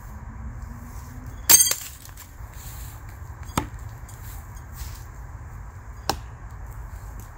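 Smith & Wesson throwing knives striking a tree trunk three times. The first strike, about a second and a half in, is the loudest and rings briefly like metal; the other two, about two and a half seconds apart, are short dry thuds.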